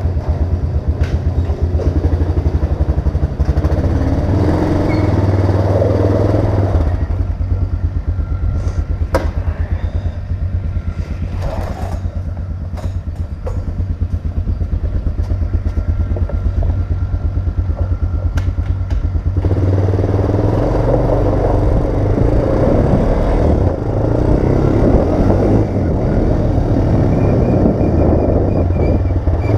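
Honda Recon 250 ATV's single-cylinder four-stroke engine running as it is ridden, getting heavier under throttle around four to seven seconds in and again from about two-thirds of the way through, and easing off in between.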